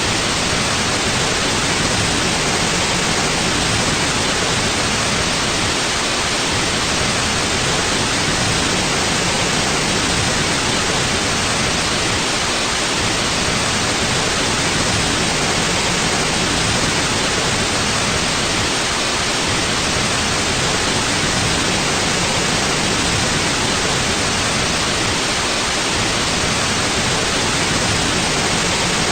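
Steady white noise: an even, unchanging hiss with no rhythm or breaks.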